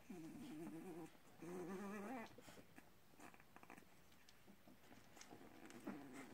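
Two-week-old puppy whining: two wavering cries of about a second each in the first two seconds, then faint rustling and a softer whimper near the end.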